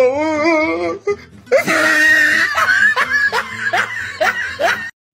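A person laughing in a run of short, rising, wavering bursts over music, cutting off abruptly just before the end.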